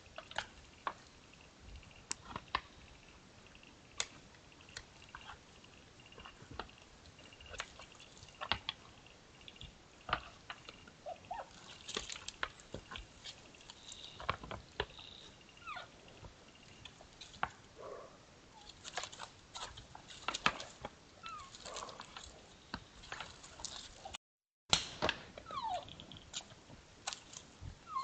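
Two sambar deer stags sparring: irregular sharp clicks and knocks of antlers striking, mixed with short odd squeaky calls that slide up or down in pitch.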